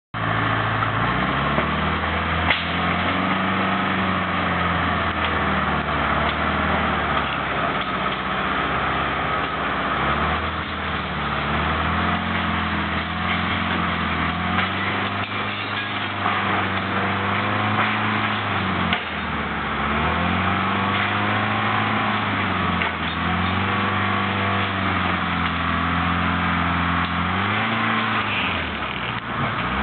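Timberjack log skidder's diesel engine running under load, its revs rising and falling again and again, with a few sharp knocks, the loudest about two and a half seconds in.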